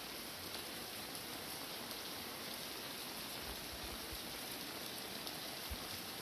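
Steady rain falling, a constant hiss of drops with scattered faint drop ticks, and a few soft low thumps about halfway through and near the end.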